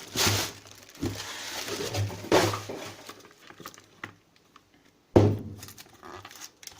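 Cardboard shipping box being handled: a few short knocks and scrapes, a pause, then one louder knock about five seconds in.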